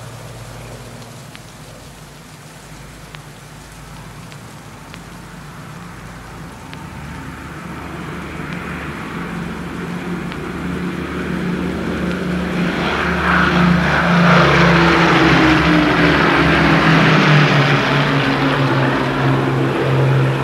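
A heavy engine drawing closer, its steady hum growing louder through the second half and peaking near the end, with one tone in the hum dropping in pitch as it nears.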